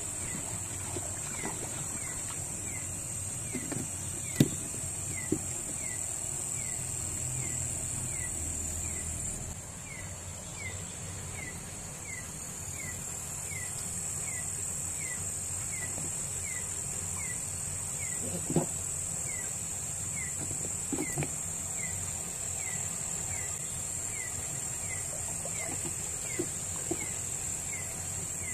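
Night insect chorus: a steady high-pitched buzz with a short falling chirp repeating about three times every two seconds. Underneath is the low slosh of someone wading in shallow water, with a few sudden splashes or knocks, the sharpest about four seconds in and near eighteen seconds.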